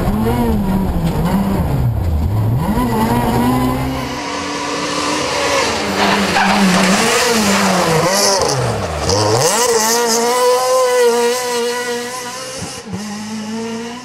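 Renault Clio R3 Maxi rally car's naturally aspirated four-cylinder engine at racing revs. It is heard first from inside the cockpit, rising and falling through gear changes, then from the roadside as the car passes: the revs drop sharply and climb again twice, then the note holds and fades as the car pulls away.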